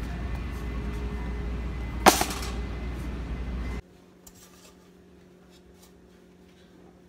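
Supermarket background noise with a low rumble from a handheld phone, broken about two seconds in by a single sharp, loud clack with a brief ring. It cuts off suddenly a little later to a quiet kitchen with a low steady hum and a few faint light taps from handling.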